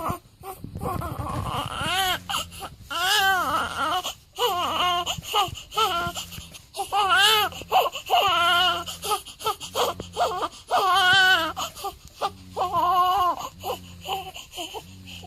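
Newborn baby crying in a string of short wails, about one a second, each rising and then falling in pitch, growing fainter near the end.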